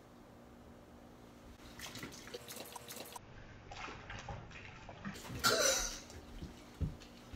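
Water poured onto a sleeping person on a fabric couch, splashing, starting about two seconds in. The loudest moment comes about five and a half seconds in, and a dull thump follows near the end.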